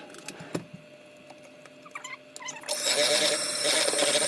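Electric mixer beating a cream cheese, butter and powdered sugar filling: a few light clicks and knocks, then the mixer starts about two-thirds of the way in and runs steadily with a constant motor hum.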